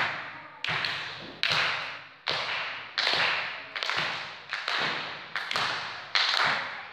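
A steady run of about eight sharp slapping impacts, one every 0.8 s or so, each echoing and dying away in the large hall.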